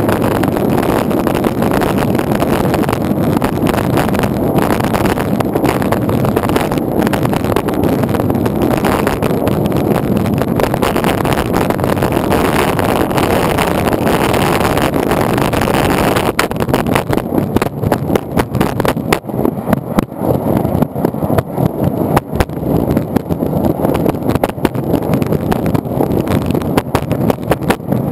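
Longboard wheels rolling over asphalt, a loud steady rumble picked up close to the deck. About sixteen seconds in, the rumble turns rougher and choppier, with a rapid run of small clicks and knocks.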